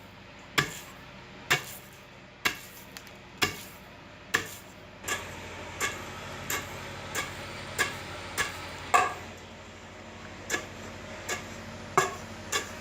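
Repeated sharp knocks at a steady pace, about one a second, quickening to roughly three every two seconds after about five seconds. A steady low hum starts underneath at the same point.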